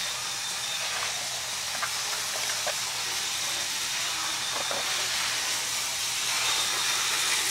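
HO scale model diesel locomotive, the CP Rail 1412, running a lap of the track: a steady whirring hiss from its motor and its wheels on the rails, with a few faint clicks, growing a little louder near the end.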